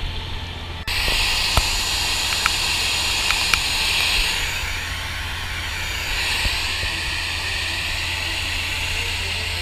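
Handheld fire hose nozzle spraying water: a steady, loud hiss of the spray that starts abruptly about a second in, with a few sharp ticks in its first seconds.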